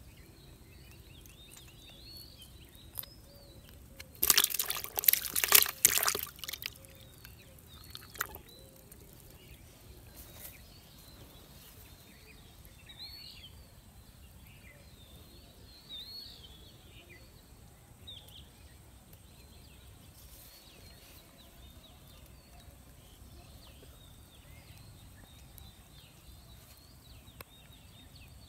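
Faint bird calls chirping over a quiet rural background. About four seconds in, a loud burst of close crackling noise lasts about two seconds, and one more sharp click follows near eight seconds.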